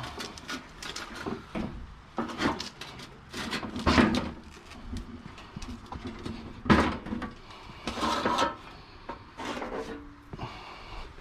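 Irregular knocks, thumps and clatter of hard-rubbish items being handled and loaded, with the two loudest thumps about four and about seven seconds in, and a few short scrapes near the end.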